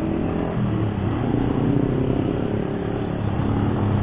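Keeway CR152 motorcycle engine running in traffic, its pitch rising and falling with the throttle.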